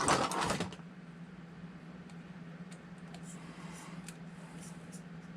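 Small parts of a 1/24-scale RC crawler being handled during disassembly: a brief rustling clatter at the start, then faint scattered ticks over a steady low hum.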